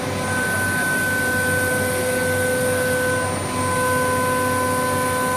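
COSMEC FOX CNC nesting router running steadily, a constant whine over even machine noise.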